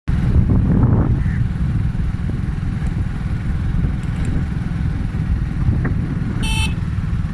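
Steady low rumble of a moving vehicle with wind buffeting the microphone while riding along a road, with a brief high-pitched beep about six and a half seconds in.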